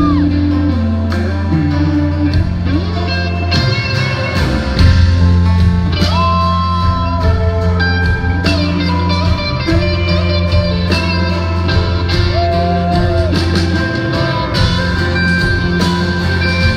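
Live band with an electric guitar taking the lead, playing sustained notes that are bent up in pitch and held, over bass and drums.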